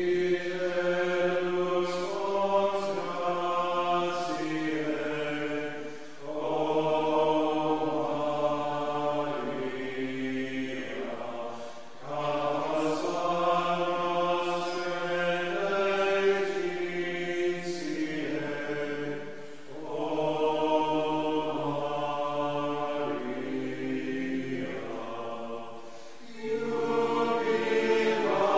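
Voices singing a slow chant in unison, in long phrases of about six seconds with short breaths between them.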